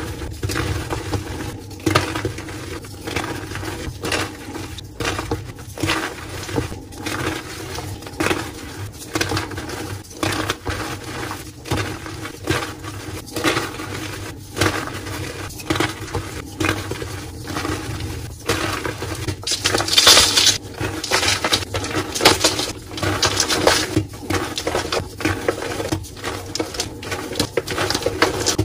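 Blocks of dyed gym chalk being crushed and crumbled in bare hands: dense, irregular crunching and crumbling, with chunks and powder falling onto a loose chalk pile. A louder, sharper crunch comes about twenty seconds in.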